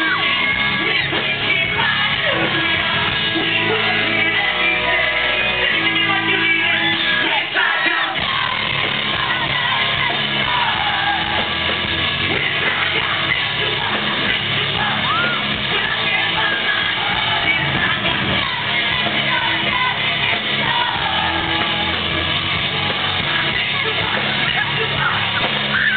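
A post-hardcore band playing live, loud and steady, with sung vocals and yells over the full band.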